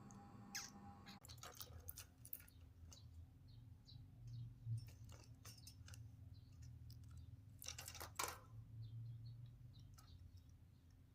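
Faint, scattered small clicks and scratches, with two brief louder rustles about four and a half and eight seconds in.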